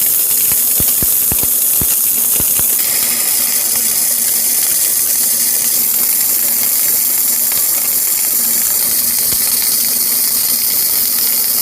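Electric arc welding on a steel bracket: the arc gives a steady, loud hiss, with a few sharp ticks in the first few seconds. It starts suddenly and cuts off at the end.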